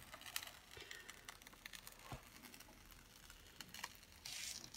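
Near silence with faint scattered ticks and a brief rustle of paper a little over four seconds in. The sound comes from the protective paper sheet and canvas of a diamond painting being handled.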